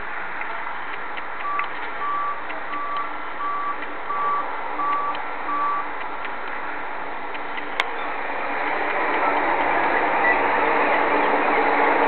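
A vehicle's reversing alarm beeping seven times, evenly spaced, over faint background ticking. A single sharp click comes about eight seconds in, and then a steady noise builds and keeps up.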